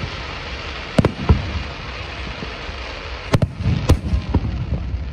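Aerial fireworks shells bursting with sharp booms: two about a second in, two more around three and a half seconds in, then a few smaller pops. A steady hiss runs under the booms.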